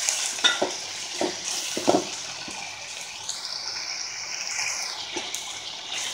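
Amaranth stems and onion sizzling as they fry in oil in an aluminium pot, stirred with a steel spoon that knocks and scrapes against the pot now and then.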